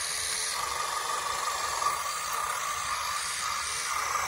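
Radio-controlled model tractors' small electric drive motors and gearboxes whining under load as they push soil, over a steady hiss.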